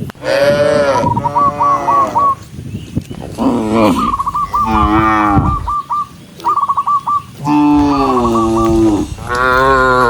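Several cattle mooing in turn, long drawn-out calls following one another and sometimes overlapping. A thin, wavering high note recurs between the moos.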